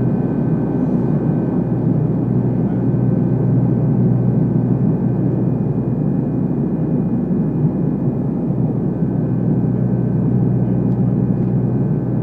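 Steady cabin drone of a turboprop airliner in flight: engines and propellers running with a low hum and rush of air, plus two faint, steady high tones above it.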